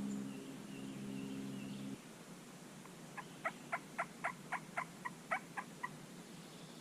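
Turkey yelping: a run of about eleven short, evenly spaced yelps at nearly four a second, starting about three seconds in. Before it, a low steady hum cuts off about two seconds in.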